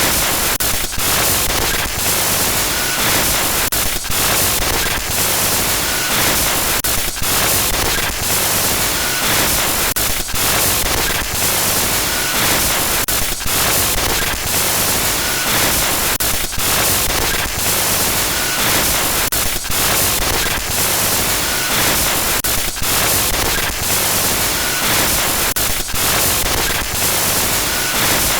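Harsh digital glitch noise: loud, dense static that stutters and briefly cuts out many times, in a pattern that repeats every few seconds.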